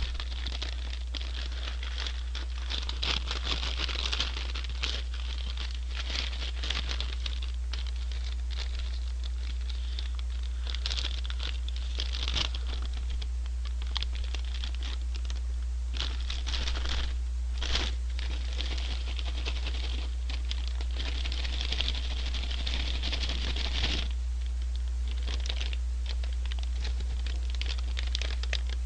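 French fries being shaken in a folded paper shaker bag to mix in honey butter seasoning: bouts of rattling paper rustle that stop and start, over a steady low hum.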